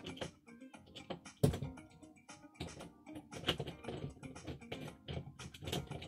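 Irregular clicks and knocks of a screwdriver and door knob parts being handled as the last door knob mounting screw is backed out, with a few sharper knocks.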